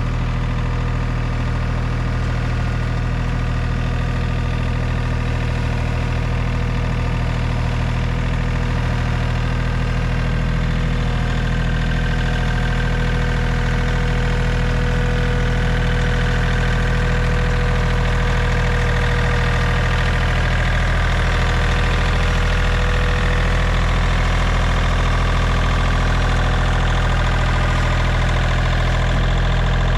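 John Deere compact tractor engine running steadily as the tractor drives slowly up close, growing slightly louder as it nears.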